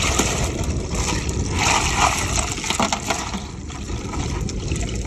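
Wind buffeting the phone's microphone over a steady rush of surf, the rush swelling about two seconds in.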